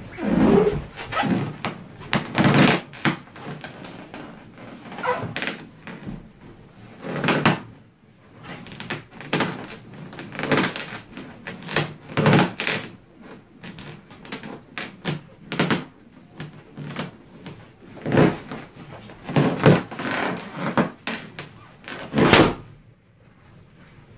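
Large latex balloon squeaking, rubbing and thumping under a person's weight as they sit and bounce on it, in irregular bursts that come and go.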